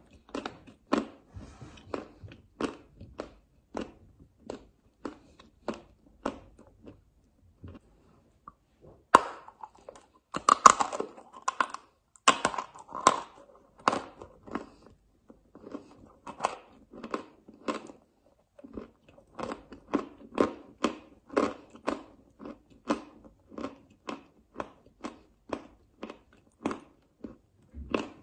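Close-up chewing of a mouthful of chalk, each bite crunching, about two crunches a second. After a short pause there is a denser, louder run of crunching, then the steady chewing resumes.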